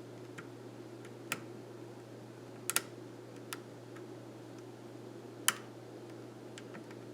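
Scattered sharp metallic clicks of a lock pick and tension wrench working the pins of a challenge lock during single-pin picking, a few clicks spread out over several seconds, the loudest about five and a half seconds in.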